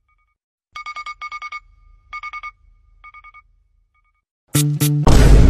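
Electronic trilling ring in short bursts of rapid pulses, about four bursts over three seconds with pauses between. Loud music with a beat cuts in about a second before the end.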